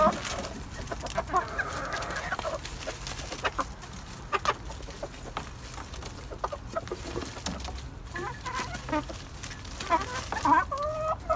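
Backyard chickens clucking, with short calls scattered through and a few longer, higher calls now and then.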